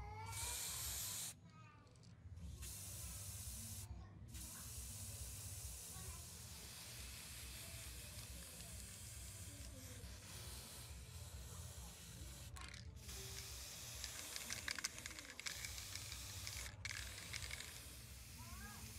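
Aerosol spray paint can hissing in long bursts, stopping briefly a few times, as green paint is sprayed onto small metal model parts.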